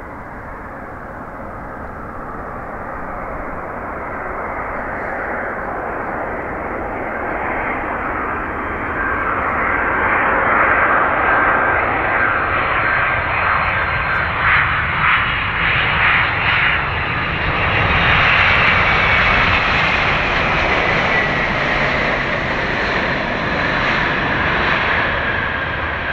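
The two General Electric CF6-80C2B7F turbofans of a Japan Airlines Boeing 767-346ER on final approach and landing. The jet rumble grows steadily louder as the airliner comes in low. A steady whine joins about a third of the way in, and in the second half a whine falls in pitch as the jet passes by and settles onto the runway.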